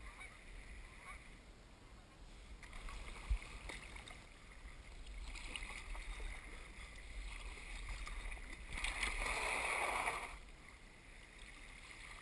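Water lapping and paddle sounds around a sea kayak, with a single sharp knock a few seconds in. Near the end comes a louder scrape of about a second and a half as the kayak's hull runs up onto the beach.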